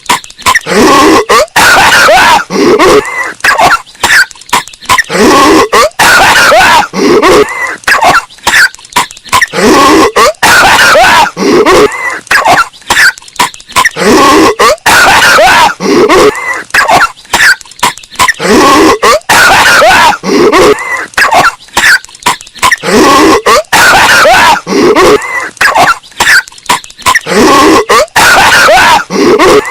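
Patrick Star's cartoon coughing, bass boosted and distorted: loud, harsh coughs in quick runs with short gaps, repeating over and over.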